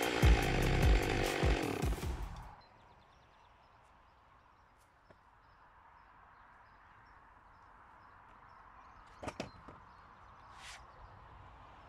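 Chainsaw on a chainsaw mill running, then cutting off about two and a half seconds in. Quiet outdoor ambience follows, with a few sharp wooden knocks near the end as a sawn slab is lifted off the log.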